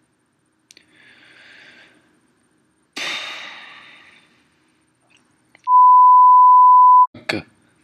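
A loud, steady, single-pitched beep lasting about a second and a half, a censor bleep laid over his words as he opens his mouth. Before it, about three seconds in, comes a short rush of breathy noise that fades away.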